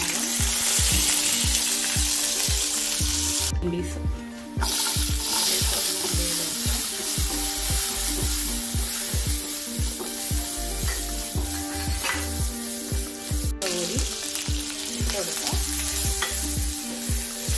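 Ginger-garlic paste and spices sizzling as they fry in hot oil in a nonstick wok, stirred and scraped with a wooden spatula.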